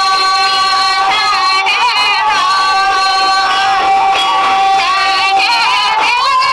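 A Santali song: a high voice singing long, wavering held notes over instrumental backing.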